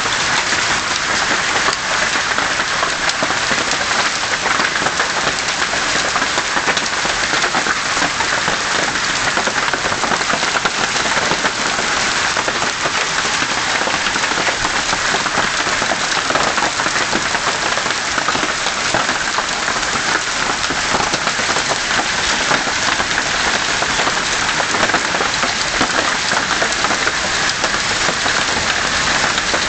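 Hailstorm: large hailstones pelting the house roof in a dense, steady clatter, a booming sound that does not let up.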